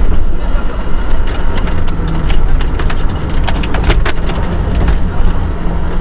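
Volvo 244 rally car's engine running hard at speed, heard from inside the cabin, with sharp clicks and knocks from stones and ice striking the underbody, densest in the middle.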